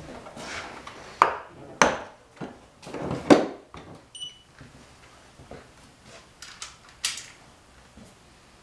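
Several sharp clacks and knocks of hand tools and parts being handled, with a short high electronic beep about four seconds in.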